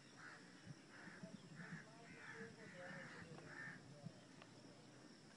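A bird calling faintly: about six short harsh calls, roughly one every half second or so, stopping a little before the end.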